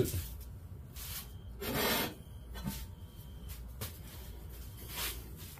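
Workbench handling noise as a Briggs & Stratton 5 hp engine block is picked up: one short rubbing scrape about two seconds in, then a few light clicks and a softer rub.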